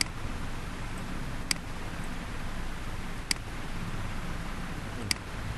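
Computer mouse button clicking four times at an even pace, about every second and a half to two seconds, placing the points of a line drawing. A steady low hum runs underneath.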